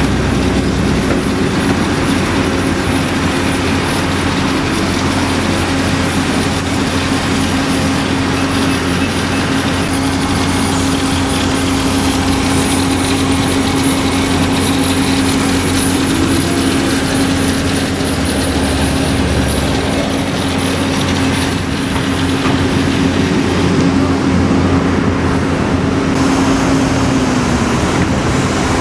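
Daewoo crawler excavator working under load: its diesel engine and hydraulics run as a steady, loud drone with a constant humming note, which dips slightly near the end.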